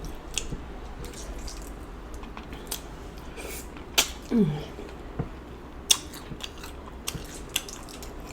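Close-miked eating of sauced seafood: wet chewing and lip smacks with scattered sharp clicks. There is a short falling hum of "mm" about four seconds in.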